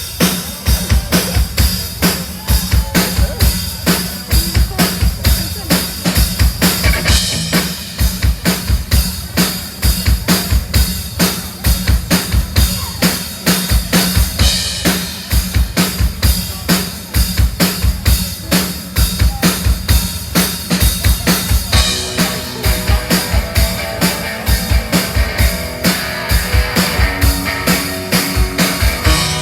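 Live rock band playing an instrumental passage: a drum kit keeps a steady, driving beat of kick and snare with bass underneath, and guitar parts join about 22 seconds in.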